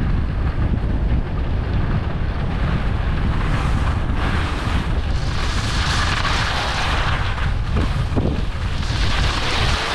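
Wind buffeting the microphone of a camera carried while skiing downhill: a steady low rumble with a hiss above it.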